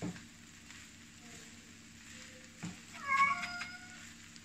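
Spatula stirring fried rice with shrimp in a nonstick frying pan, with a faint sizzle and knocks of the spatula against the pan at the start and about two and a half seconds in. A brief high-pitched squeal about three seconds in is the loudest sound.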